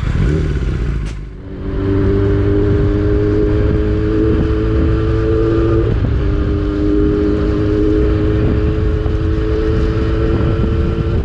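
Yamaha R6 600cc inline-four engine running loud under way, its pitch creeping slowly upward, with a brief break about six seconds in before it settles again. Wind rushes over the microphone underneath.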